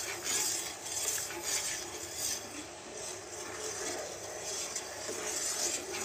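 A perforated stainless steel spoon stirring and scraping around a stainless steel kadhai of sugar syrup, with soft metal-on-metal scrapes and clinks over a steady light hiss. The syrup is just coming to a gentle boil.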